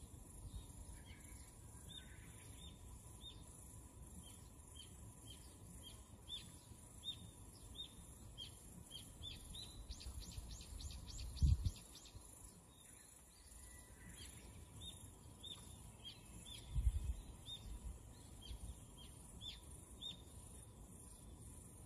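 Small birds chirping, short falling calls about one or two a second, with a faster flurry of calls about halfway through, over a steady high hiss. Two dull thumps, the loudest sounds, come about halfway and about two-thirds of the way through.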